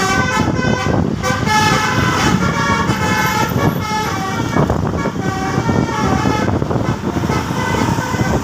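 Bus 'telolet' multi-tone air horn playing a rapid run of short notes that change pitch, over engine and traffic rumble.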